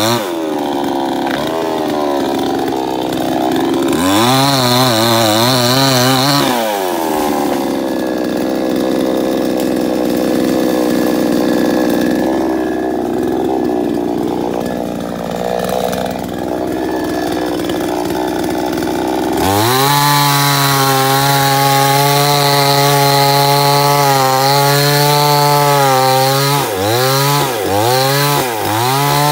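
Two-stroke gas chainsaw running hard and cutting through a pine trunk. Its engine pitch wavers and dips as the chain bites into the wood, with a steadier stretch in the middle. About two thirds of the way in it comes back at high revs, then bogs down in several dips near the end.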